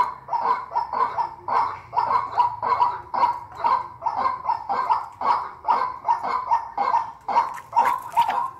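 White-breasted waterhen calling: a harsh note repeated over and over, about two to three times a second, without a break.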